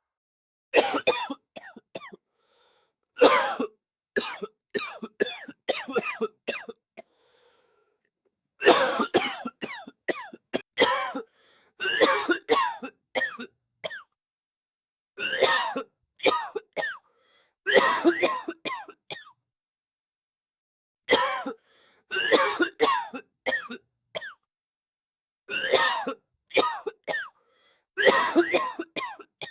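An elderly man coughing in repeated fits, each a run of several short hacking coughs, with brief silent pauses between the fits and throat clearing.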